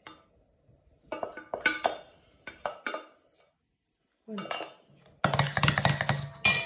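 A wooden spoon knocks and scrapes against a stainless steel saucepan and bowl in short separate clinks. Then comes a denser run of stirring and scraping in the stainless bowl of strawberry coulis, ending in a sharp knock.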